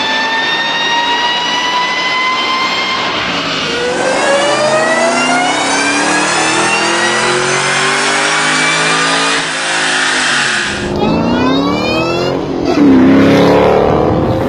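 Supercharged car engines accelerating, the supercharger's whine climbing steadily in pitch over the engine. There are three separate runs: two long rising pulls, then a shorter stretch of revs rising and falling, loudest near the end.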